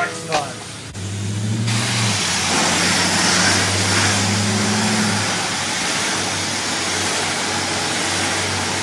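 Self-serve car wash high-pressure wand spraying onto a truck: a steady hiss that comes in about a second in, with a low hum from the running equipment underneath. A couple of short clicks come just before the spray starts.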